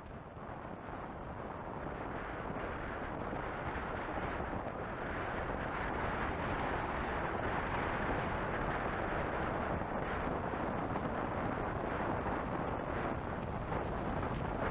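Steady rush of wind over the microphone and road noise from a car driving along a highway, growing louder over the first several seconds and then holding.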